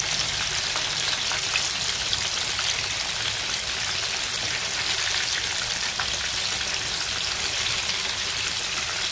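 Spanish mackerel (ikan tenggiri) steaks frying in hot oil in a wok: a steady sizzle with a crackle of many small pops.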